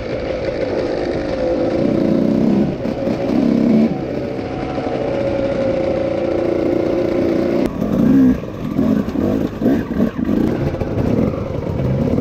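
Dirt bike engine revving, its pitch rising and falling with the throttle. After about eight seconds the revs rise and drop quickly several times.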